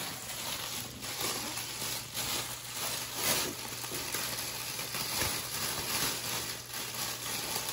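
Packaging rustling and crinkling in irregular bursts as a baby activity gym's play mat is handled and unpacked from its box, over a low steady hum.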